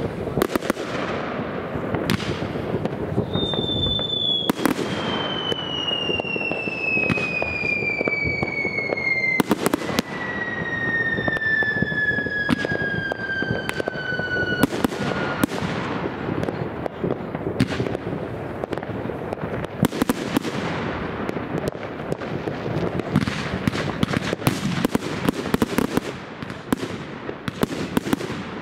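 Many fireworks going off at once: a dense, constant crackle of bangs and pops with sharper reports among them. A long whistle falls slowly and steadily in pitch from about three seconds in until about fifteen seconds in.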